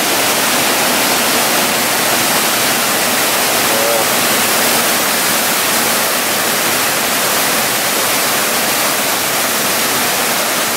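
Rain-swollen waterfall pouring into flooded, muddy water: a loud, steady rush of falling and churning water.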